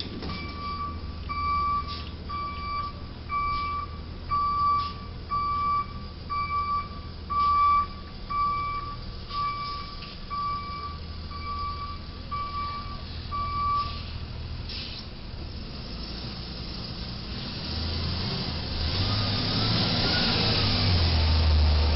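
Box truck's reversing beeper sounding about once a second as the truck backs up, with its engine running underneath. The beeping stops about two-thirds of the way through, and the engine grows louder as the truck pulls forward.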